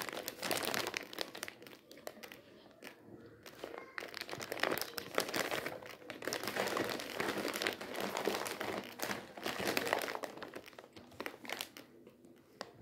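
Plastic rice packets crinkling and crackling as they are handled and shuffled in the hands, in uneven rustles that ease for a moment about two seconds in and again near the end.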